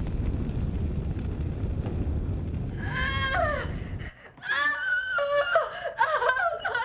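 A low steady rumble with a woman's strained cry over it; the rumble cuts off at about four seconds and she screams repeatedly in long, rising and falling cries of labour pain while giving birth.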